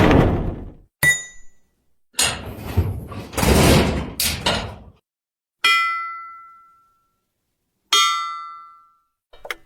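A series of separate metal hits with silence between them: a heavy clang at the start, a short ringing clink about a second in, and a rattling run of clangs from about two to five seconds. Then two bright metallic pings, near six and eight seconds, each ring out for about a second.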